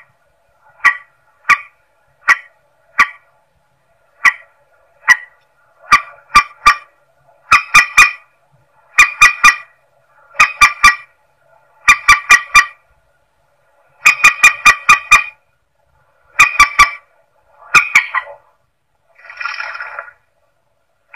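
Lure-recording call of a rail (Indonesian 'mandar sawah'): sharp, clicking notes, single at first, then in quick bursts of two to four. Near the end come a couple of longer, harsher calls.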